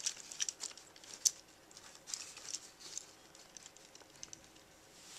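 Handling of a plastic Transformers Armada Cyclonus action figure: scattered light clicks and rustling as its arms are moved into pose.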